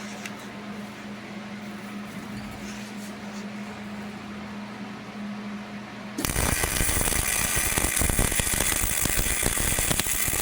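Steady low hum, then about six seconds in the arc of a Hobart 220-volt welder strikes and crackles loudly for about four seconds while a tack weld is laid on half-inch steel hitch plate, cutting off suddenly.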